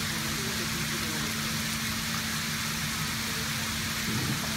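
Steady rush of water in a scale-model flood barrage as the crest gates open and water spills over them into the pool below, with a steady low hum running under it.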